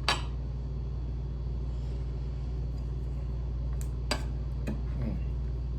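Steady low electrical hum with a few light, sharp clicks and taps: one at the start and four in the second half.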